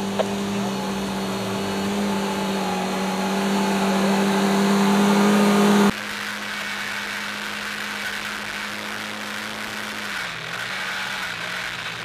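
Off-road 4x4 engine held at steady high revs as it pushes through deep mud, slowly getting louder. About halfway through there is a sudden cut to a quieter, steady engine sound whose revs dip briefly twice near the end.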